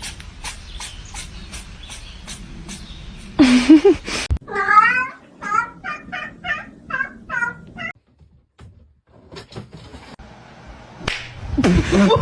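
A domestic cat calling. One loud short yowl about three seconds in, then a quick run of short chirping meows, about three a second, that stops before the end. Faint regular clicks come before the yowl.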